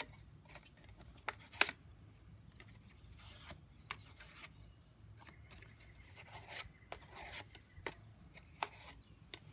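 Patterned cardstock rustling and rubbing as it is handled and smoothed by hand, in short spells, with scattered light taps and clicks, the sharpest about one and a half seconds in.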